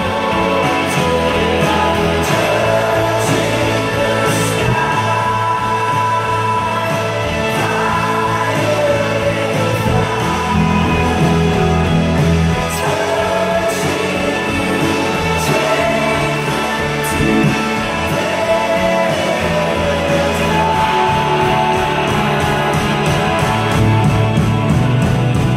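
Live pop-rock band playing a song: a male singer's voice over bass guitar and drums.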